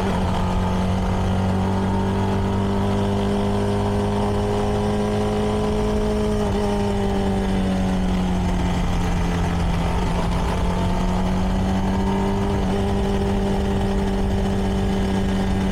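CFMoto 300NK's single-cylinder engine through its stock exhaust, pulling steadily at cruising speed. The pitch creeps up slightly, dips briefly about six seconds in, then holds steady, over a low wind and road rumble.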